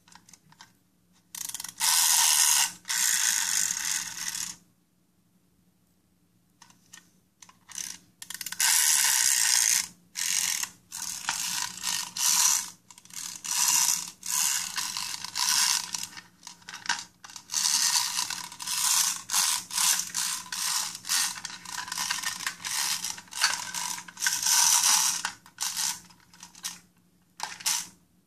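Wind-up toy bus's clockwork mechanism: the key turned in repeated strokes, a rasping ratchet-and-gear whir in bursts, with a pause of a few seconds early on and a long run of short bursts after it.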